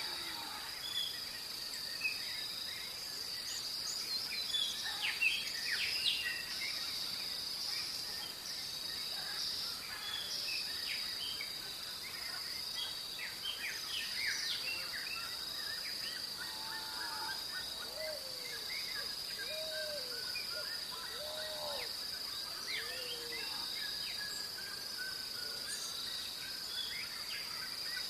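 Dawn chorus: several birds chirping and calling over a steady high-pitched insect drone. From about halfway, one bird gives a long run of repeated notes that slowly fall in pitch, with a few low calls under it.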